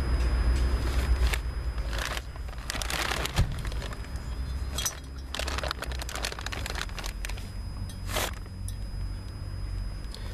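Hand-handling noise at an opened engine head: a run of irregular metal clicks and scrapes over a low rumble, busiest in the middle.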